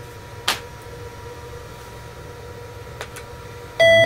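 Steady hum of the 8088 XT clone's cooling fan and drives, with a sharp click about half a second in and a lighter one about three seconds in. Near the end, a short, loud single-tone beep from the PC speaker: the POST beep as the machine restarts.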